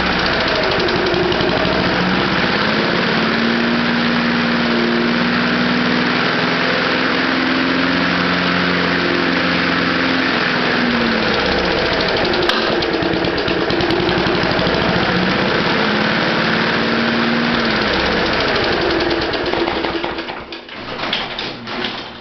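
Small air-cooled lawnmower engine running on gasoline vapor drawn through a wick, its speed dipping and recovering a little several times. Near the end the engine stops and a few sharp knocks follow.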